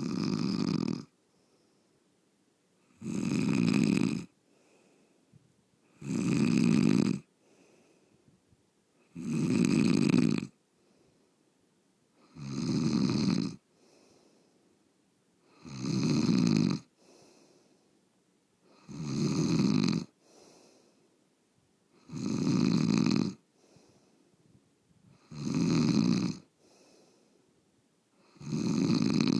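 A sleeping person snoring loudly: long snores coming regularly, about every three seconds, ten in all, each lasting a little over a second.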